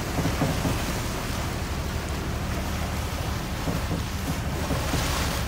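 Choppy sea water washing against a boat and wind on the microphone, over a low steady drone.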